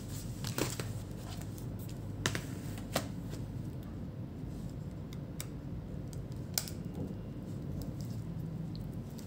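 Small clicks and taps of plastic and metal laptop parts being handled as the motherboard and its cable connectors are worked loose, with a few sharper clicks about half a second, two, three and six and a half seconds in. A steady low hum lies underneath.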